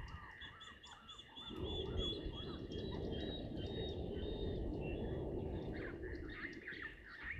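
Wild birds calling: short, repeated arching calls and high thin whistles. A low rushing noise runs under them through most of the middle and is the loudest sound.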